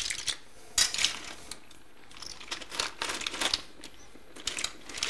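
Steamed mussels being gently stirred with a perforated metal skimmer in a metal pot: the shells clatter and rattle against each other and the skimmer in several short crackly bursts, about a second apart.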